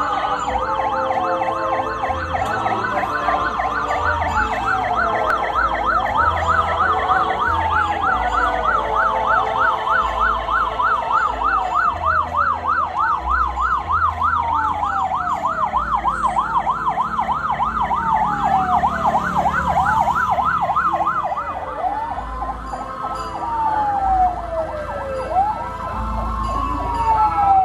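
Vehicle sirens, two at once: a fast yelp warbling about four times a second, which stops about three-quarters of the way through, over a slower wail that rises and falls every couple of seconds and carries on. Low engine rumble underneath.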